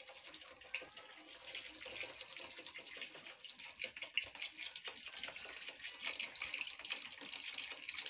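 Alcohol pouring steadily from a 2-litre plastic bottle into a plastic bucket of used cooking oil, a continuous splashing trickle.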